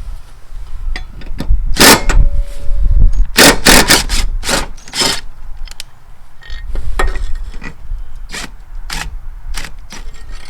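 Metal clanks and scrapes of tools and steel mower blades as the blades are taken off a riding mower's deck: a series of sharp, irregular knocks, thickest a few seconds in, with more near the end.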